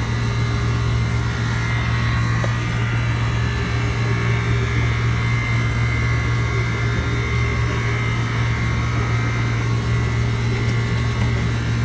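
Air-conditioning unit running: a steady mechanical hum with a strong low drone and a faint high whine.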